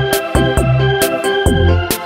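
Background music with a steady beat of about two hits a second over bass and held notes.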